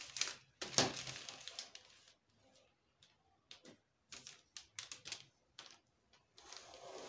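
Plastic pattern-drafting rulers being shifted and laid down on brown pattern paper: paper rustling and ruler scraping near the start, then a run of light taps and clicks, and more rustling near the end.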